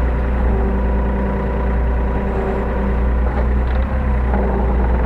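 Hyundai R35Z-9A mini excavator's diesel engine running steadily, heard from inside the cab, with a slight change in tone about four seconds in.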